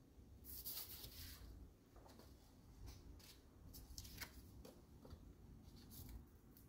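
Faint, short scratching strokes of a marker pen drawing around a paper template on a steel sheet, with the paper template rubbing on the steel as it is moved.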